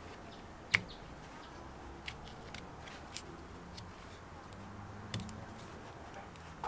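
Small clicks and taps of a drill's trigger switch and its wires being handled and pressed into the plastic handle housing, with one sharp click about three-quarters of a second in and a few lighter ones after.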